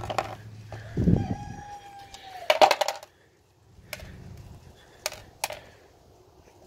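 Small metal pieces and a magnetic drain plug clattering onto a plastic tub lid as a gearbox filter sock is shaken out, in a handful of separate clinks and knocks with the loudest near the middle. The debris is fragments of a destroyed third gear from the gearbox.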